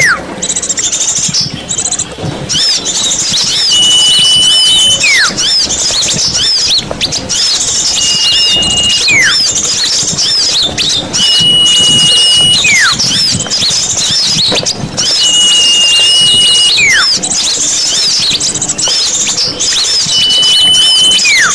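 Bird-lure recording of many small birds chirping and twittering densely together. Over the chorus, a clear whistle is held for about a second and then slides steeply downward, repeating about every four seconds, five times, like a looped track.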